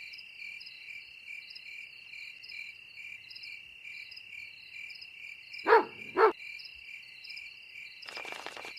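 Crickets chirping steadily in a fast even pulse, with a puppy giving two short vocal calls about six seconds in and a brief soft whoosh near the end.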